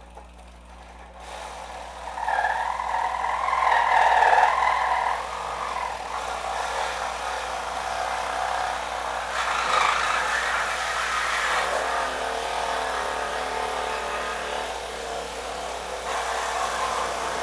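Reciprocating saw with a metal-cutting blade cutting through rusty pallet nails and a lot of wood in a tight gap between a pallet board and its stringer. It starts about two seconds in, whines loudest over the next few seconds, then keeps cutting without a break.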